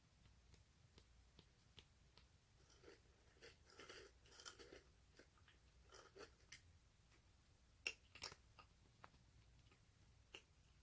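Ginger tabby kitten eating, a faint run of small crunches, clicks and mouth smacks, busiest around four seconds in, with a couple of sharper clicks near the end.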